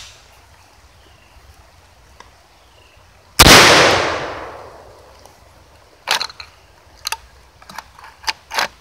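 A single loud shot from an SDS Lynx 12-gauge semi-automatic shotgun about three and a half seconds in, its report echoing and dying away over about a second and a half. Several short, sharp clicks and clacks of the gun being handled follow near the end.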